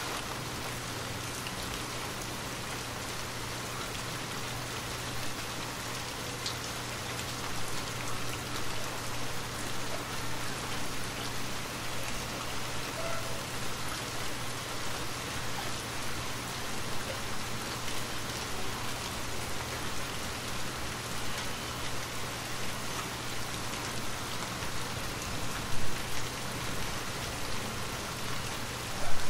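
Rain falling steadily, an even hiss of many drops, with a couple of brief louder hits near the end.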